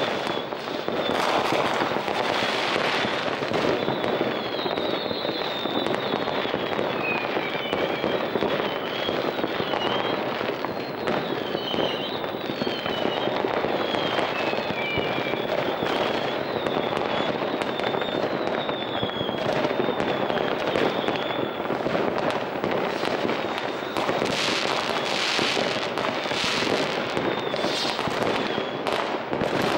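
Rockets and firecrackers banging and crackling continuously, many going off at once, with short high whistles coming and going through the middle.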